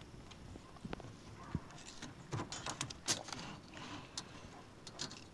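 Scattered light clicks and rattles of a tape measure being handled by a monkey, its metal blade pulled out and tapping on the trampoline mat.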